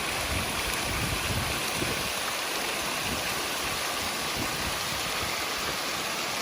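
Rushing water from a mountain waterfall or snowmelt stream: a steady, dense hiss with an uneven low rumble beneath it.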